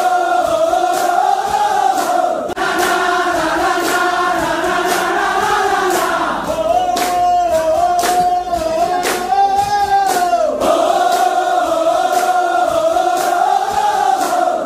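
A group of soldiers singing a yel-yel, an Indonesian military unit chant, in unison like a choir, over a regular beat.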